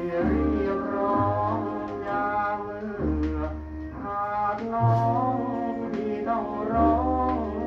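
Old Thai popular song from a 45 rpm record: a male singer with vibrato over a military dance band's accompaniment, with bass notes that change about once a second and some brass.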